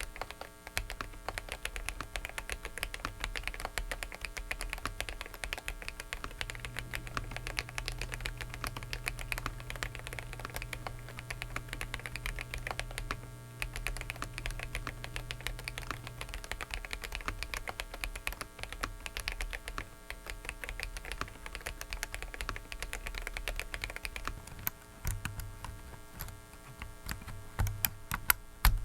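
Fast, continuous typing on a Dareu mechanical keyboard, a dense run of keystroke clicks. Beneath it runs a steady electrical hum and noise from a faulty microphone.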